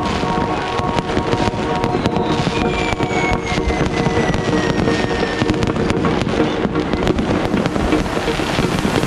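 Fireworks and firecrackers going off in a dense, irregular run of bangs and crackles, with a whistling firework falling in pitch about two and a half seconds in.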